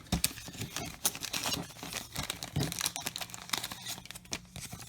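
Crinkling and rustling of a trading-card pack's wrapper being handled and torn, with quick crackles and small clicks throughout.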